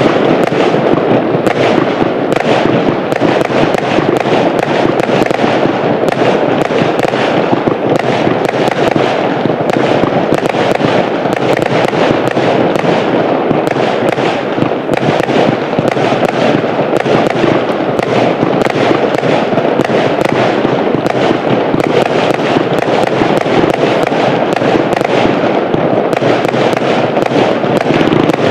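Fireworks display: a dense, unbroken barrage of many overlapping bursts and crackles, with no pause.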